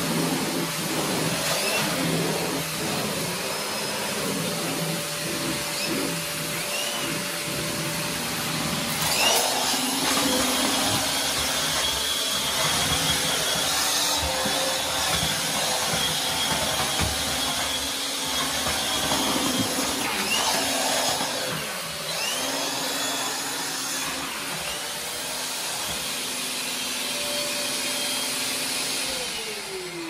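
Maytag Satellite vacuum cleaner running, a steady motor whine over rushing air, its pitch shifting now and then. Near the end the motor is switched off and winds down in a falling whine.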